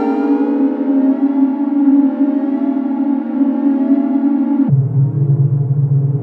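Microtonal synthesizer drone from DIN Is Noise software: a dense sustained chord with slowly wavering upper tones, which drops suddenly to a lower-pitched drone about four and a half seconds in.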